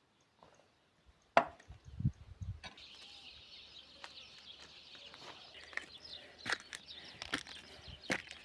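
A few sharp knocks, like wood being struck, the loudest about a second and a half in, with birds chirping steadily from a little before the halfway point.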